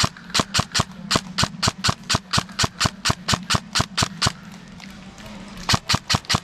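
Airsoft gun firing a quick string of shots, about five a second for roughly four seconds, then a pause and a short burst of a few more near the end, over a steady low hum.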